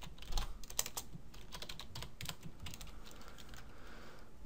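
Computer keyboard being typed on: irregular keystroke clicks, thinning out after about three seconds.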